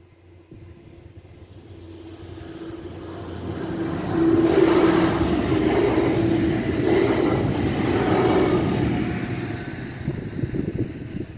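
PESA ATR 220 diesel multiple unit running past over a level crossing. It builds up as it approaches, is loudest as it goes by, and fades as it leaves. A high whine drops in pitch as it passes.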